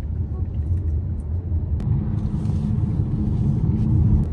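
Steady low road rumble and tyre noise inside the cabin of a moving BYD car, growing a little louder in the second half.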